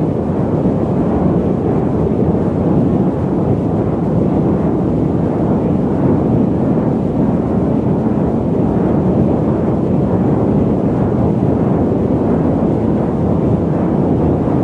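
Steady low rumble of a jet airliner's cabin noise in cruise, with no change in pitch or level.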